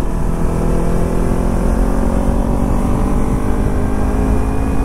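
Kawasaki Ninja 300's parallel-twin engine running steadily under way, its pitch rising slowly as the bike gains speed, over a heavy low rumble.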